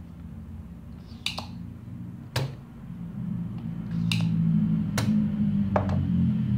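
About five sharp clicks and taps of tools on a TV circuit board while an electrolytic capacitor is being desoldered, over a low hum that grows louder about halfway through.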